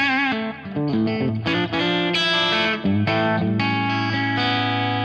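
Electric guitar played through a Fractal Audio modeler's crunch preset, lightly distorted: a few picked notes, the first bent with vibrato, then a note held and left ringing near the end.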